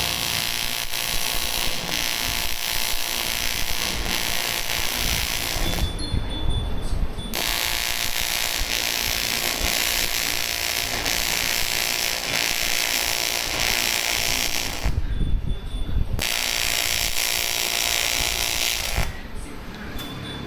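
AC TIG welding arc on aluminium, a steady buzzing hiss. The arc is struck three times, with short breaks about six seconds in and about fifteen seconds in.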